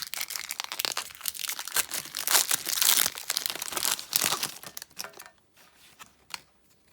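Foil Pokémon booster pack wrapper being torn open and crinkled: dense crackling for about five seconds, then it drops away to a few faint handling clicks.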